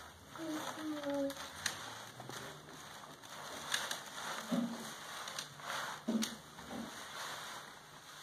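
A small child's short wordless vocal sounds, sliding in pitch, with a few light clicks.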